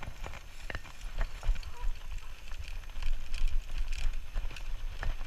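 Mountain bike rolling over a bumpy dirt path, heard from a handlebar-mounted camera: a steady low rumble with irregular clicks and rattles from the bike over the bumps.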